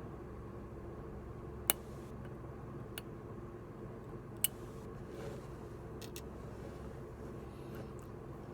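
A few sharp, separate clicks over a steady low hum. The loudest clicks come about two seconds in and again about four and a half seconds in.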